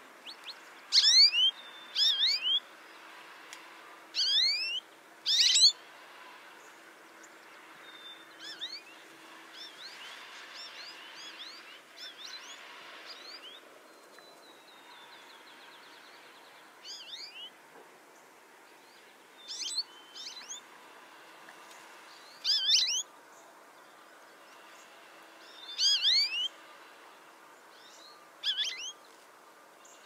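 Songbirds calling and singing: short clusters of quick, high sweeping notes repeated every few seconds, with a quieter stretch in the middle.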